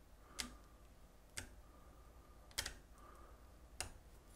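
Faint clicks and scratches of a metal weeding pick prying glue off the small plastic wire connector of a 3D printer's extruder stepper motor: four light clicks about a second apart.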